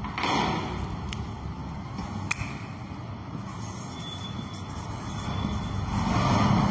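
A marker writing on a whiteboard, with a faint brief squeak about four seconds in. Under it runs a steady low background rumble that swells near the end, with a few faint clicks.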